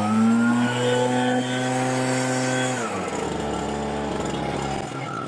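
Small engine of a garden power tool revving up, running steadily at high speed, then dropping back sharply about three seconds in and dying away near the end.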